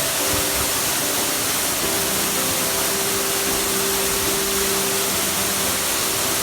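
Waterfall rushing steadily, with slow background music of long held notes over it.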